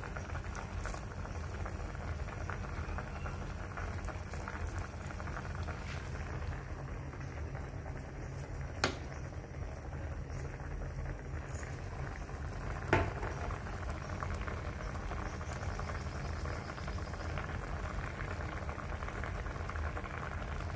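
Liquid bubbling at a steady boil in a steel wok of fish braising in coconut water and in a pot of shrimp and greens soup. Two sharp clicks come through, about nine and thirteen seconds in.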